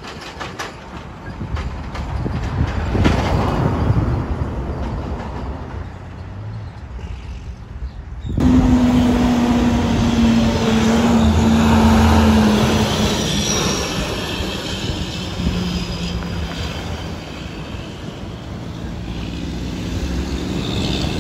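Diesel semi-truck engines running in traffic. First a bobtail tractor unit drives ahead. Then, after a sudden cut about eight seconds in, a louder passage follows as a truck hauling a shipping container moves past, with a steady engine drone and a faint high, slowly falling whine.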